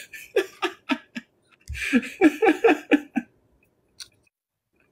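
A person laughing in short repeated bursts, a few at first and then a quicker run of laughs about two seconds in.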